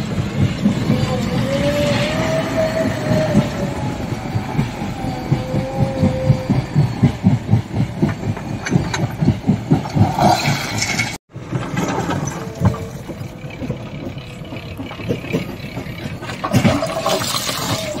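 JCB 3DX backhoe loader's four-cylinder diesel working under load, with a rapid low knocking beat and a pitch that rises and falls as the hydraulics lift the loaded front bucket. About ten seconds in, rocks tipped from the bucket clatter down into a steel hopper.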